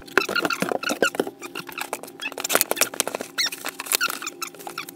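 Cardboard box and plastic packaging being torn open and rummaged through: rapid rustling and crinkling, with many sharp clicks and short squeaks.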